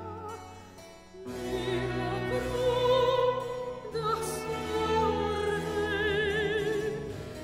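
Classical music with an operatic singing voice holding long notes with vibrato over a sustained accompaniment. One phrase fades out and a new one begins about a second in.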